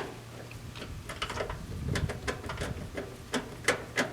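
Quarter-inch ratchet clicking in short bursts, about three a second, as the nut holding a new dryer fuse is tightened down, with a dull handling bump about halfway through.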